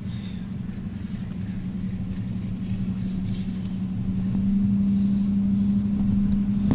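A vehicle's engine and tyres heard from inside the cabin while it drives along a sand beach: a steady low drone with a held hum. It grows louder about four and a half seconds in.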